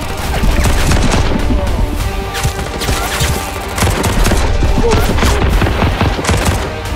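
Rapid bursts of gunfire sounds over background music.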